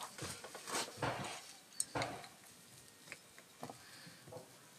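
Small metal parts clinking and tapping as they are handled and fitted during reassembly of a two-stroke motorcycle carburettor, several sharper clinks in the first two seconds, then fainter scattered ticks.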